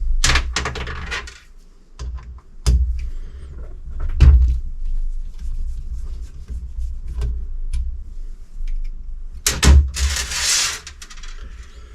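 Supercharger parts being handled and set down on a workbench: several separate knocks, and a brief rushing hiss about ten seconds in.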